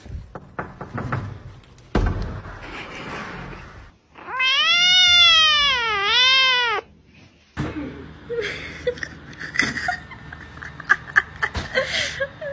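A tabby kitten meows once, long and loud, about four seconds in. The meow lasts some two and a half seconds and rises and falls in pitch twice. Before and after it there are shorter scuffling noises and clicks.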